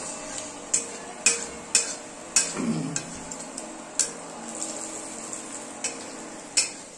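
Sliced onions sizzling as they brown in a steel kadhai, with a metal spatula stirring them and clacking against the pan about seven times at uneven intervals.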